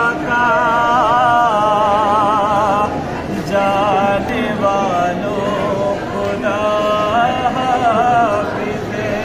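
A man's voice chanting a noha (a mourning lament) unaccompanied, in long wavering held notes with brief breaks between phrases.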